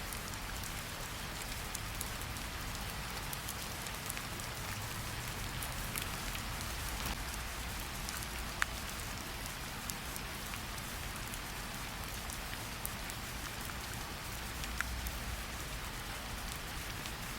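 Steady rain falling, with scattered sharper ticks of single drops striking, one a little louder about eight and a half seconds in.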